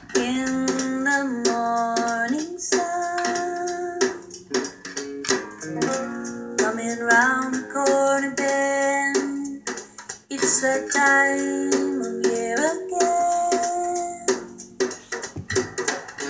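A song played from a CD: singing over plucked guitar.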